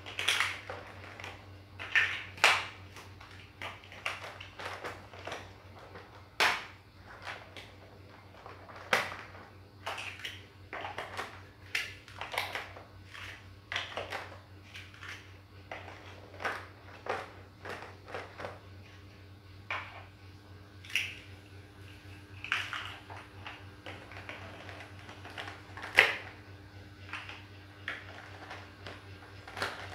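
Large plastic Lego-type building blocks clicking and clacking as they are pressed onto studs and picked from a pile. The sharp clicks come irregularly, one to three a second.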